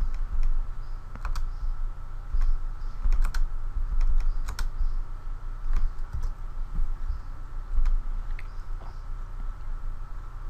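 Irregular clicks from a computer keyboard and mouse, some in quick pairs, over a steady low electrical hum.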